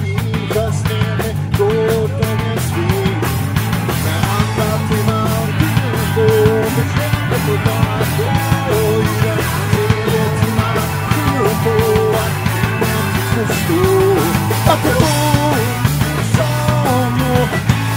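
A pop-punk band playing live: two electric guitars, bass guitar and drum kit in a fast, energetic rock song, with a melody line over the top.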